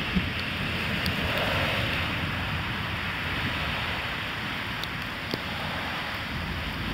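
Steady hiss of rain and of car tyres on a wet road, swelling briefly about a second in. There is low wind rumble on the microphone underneath.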